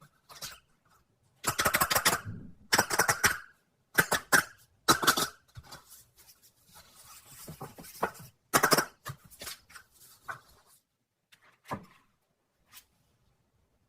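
Close-miked crackling and rustling handling sounds in irregular bursts of up to about a second, with short pauses between them.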